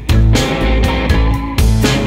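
Background music led by guitar.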